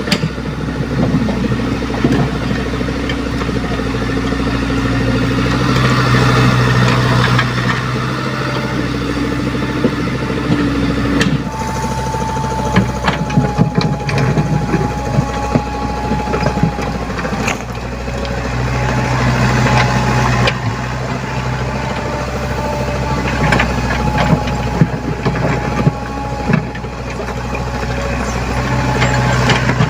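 Diesel engine of a Komatsu PC75UU mini excavator running, rising and falling a few times as the hydraulics are worked, with scattered sharp metallic clanks.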